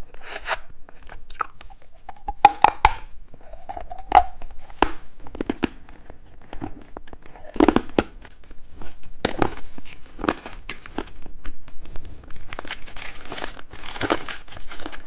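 Plastic candy wrapping crinkling and tearing in scattered short crackles, turning into a denser stretch of rustling near the end.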